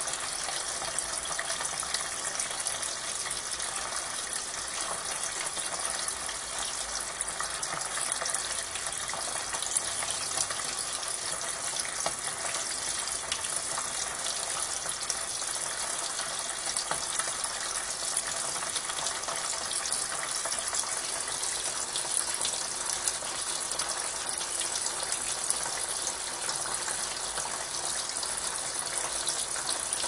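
Water gushing steadily into the tub of a Brastemp Ative 11 kg top-load washing machine as it fills, heard directly through the open lid.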